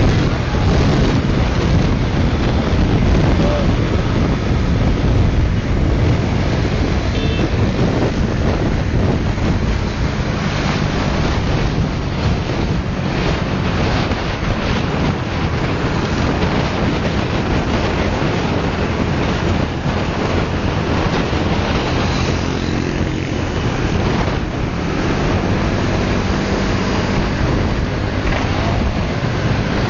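Wind buffeting the microphone on a moving motorcycle, over the steady hum of a small motorcycle engine.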